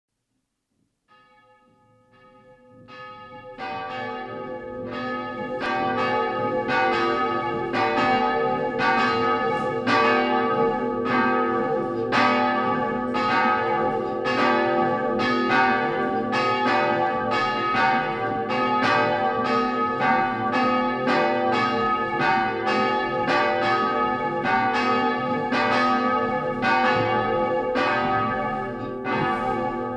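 Church bells ringing to call to mass, fading in over the first few seconds and then ringing steadily at about two strokes a second.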